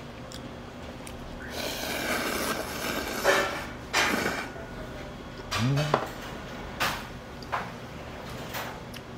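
Dishes and utensils clinking and knocking at a restaurant table, half a dozen separate knocks. A hissing stretch lasts about three seconds, starting about a second and a half in.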